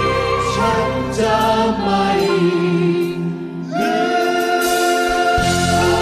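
Music with a choir singing long held notes; the bass drops out about two seconds in and comes back a little after five seconds.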